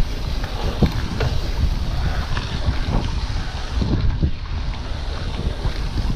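Wind noise on the microphone over the rumble of a Specialized Epic Comp full-suspension mountain bike's tyres rolling on a dirt and gravel track, with frequent small knocks and rattles from the bike.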